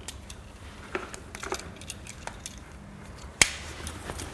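Scattered small clicks and scrapes of hands and an electrician's knife working the cut sheath off the end of a 10 mm green-and-yellow earth cable, with one much sharper click about three and a half seconds in.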